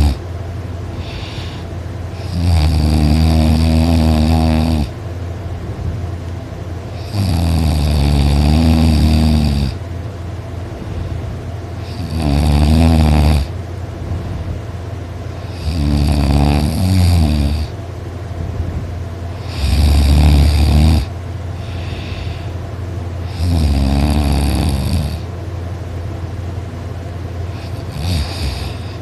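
A person snoring loudly, with six long, deep, rattling snores coming every four to five seconds and a weaker one near the end. A steady low hum continues underneath between the snores.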